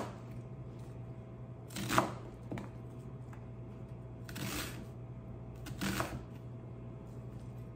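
Chef's knife slicing through a raw onion onto a wooden cutting board: four slow, separate cuts, each ending in a knock on the board, over a steady low hum.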